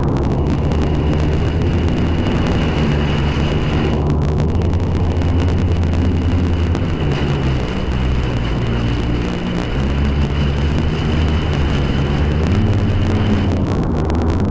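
Sea-Doo personal watercraft engine running under way, its pitch rising and falling several times as the throttle changes, with wind and water noise. A steady high whine runs over it and drops out briefly about four seconds in and again near the end.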